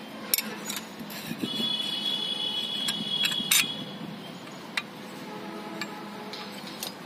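Steel parts of a Carraro transmission clutch pack clinking and knocking lightly as the clutch drum is worked down over the steel plates and friction discs, about ten scattered metallic clicks. A high steady tone sounds in the background from about one and a half seconds in, lasting about two seconds.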